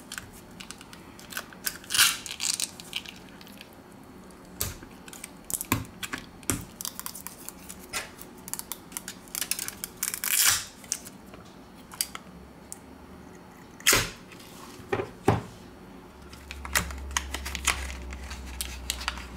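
Plastic pry tool clicking and scraping under a Xiaomi Pocophone F1's battery as it is prised up off its adhesive, with a few louder, short tearing scrapes.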